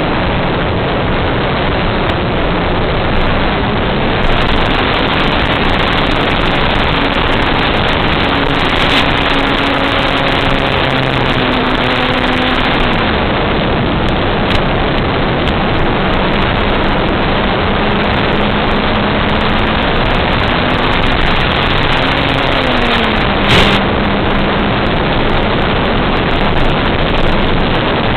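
Loud, steady rushing noise of wind and propeller on the onboard microphone of an FPV radio-control airplane in flight, with a faint motor tone that shifts up and down in pitch a few times.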